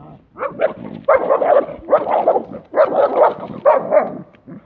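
A dog barking in four quick runs of barks, with fainter barks in the first second.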